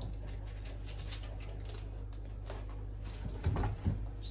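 Light clicks and taps of kitchen work on a counter, with a couple of dull knocks about three and a half seconds in, over a steady low hum.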